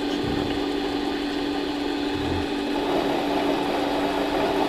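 Harbor Freight mini lathe running, its motor and spindle giving a steady whine, while the tool takes a hand-fed turning cut along a shaft.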